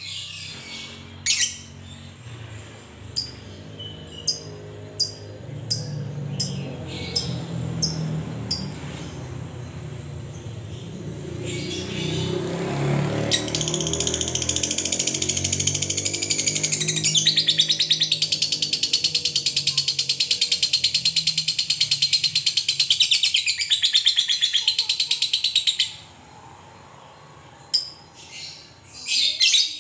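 Fischer's lovebird calling: sharp single chirps a second or so apart, then a long unbroken rapid chattering trill of about fourteen seconds, the 'ngekek panjang' prized in contest lovebirds, which cuts off suddenly, followed by a few more chirps near the end. A low drone swells and fades behind it around the middle.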